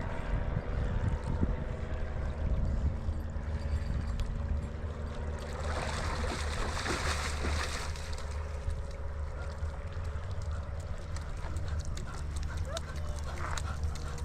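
River water sloshing and lapping, over a steady low hum. About six seconds in, a louder rush of splashing water lasts about two seconds.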